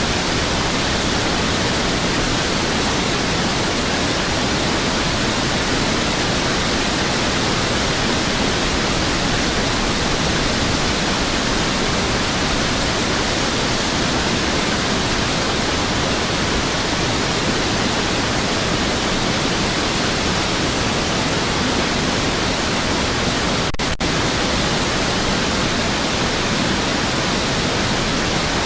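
Steady, even rush of fast-flowing floodwater, a continuous roar with no break in its texture. It is interrupted once by a split-second dropout near the end.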